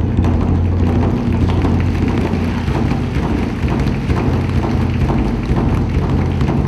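Japanese taiko drums in a fast, continuous roll: dense rapid strokes over a steady deep drone, like rain or thunder.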